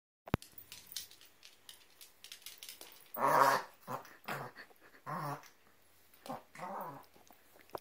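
An excited dog giving a series of about six short vocal sounds whose pitch bends up and down, the loudest about three seconds in. There is a single click near the start.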